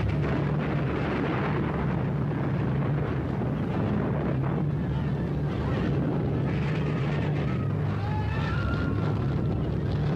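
Earthquake sound effect on a 1950s film soundtrack: a continuous heavy rumble. A few faint wavering cries come through about eight seconds in.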